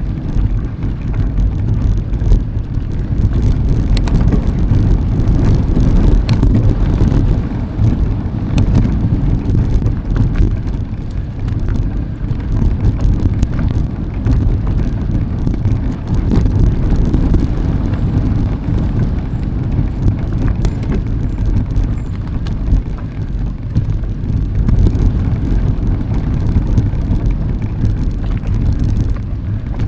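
Riding noise from a mountain bike in motion: steady rumble and wind buffeting on the microphone, broken by scattered small clicks and rattles.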